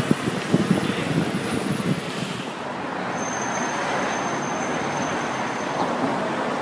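City street ambience on a phone microphone: a steady hiss of traffic noise, with rumbling knocks on the microphone through the first two seconds. A thin, steady high whine sounds for a few seconds in the middle.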